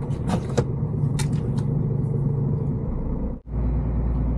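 Inside a heavy truck's cab: its diesel engine running as it drives, a steady low rumble with a few light clicks in the first second and a half. About three and a half seconds in the sound drops out for an instant and comes back as a deeper, steadier rumble.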